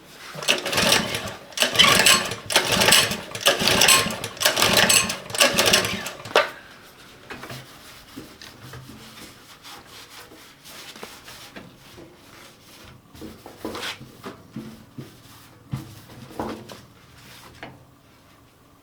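Rapid back-and-forth scraping or scrubbing strokes, about two a second, for some six seconds. Then quieter scattered clicks and knocks of handling.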